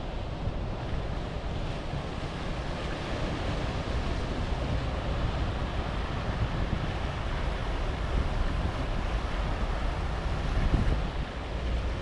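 Surf washing onto a rocky shoreline, with wind buffeting the microphone in a steady low rumble.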